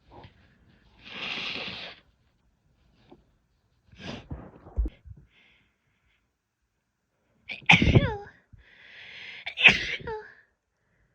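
A woman sneezing twice, about two seconds apart in the second half, the second sneeze coming after an audible breath in. Breathy sounds of building up to the sneeze come before them.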